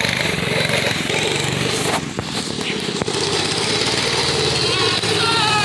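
Small petrol engine of an off-road go-kart running under throttle as the kart drives over dirt, a steady loud engine noise with a wavering higher pitch near the end.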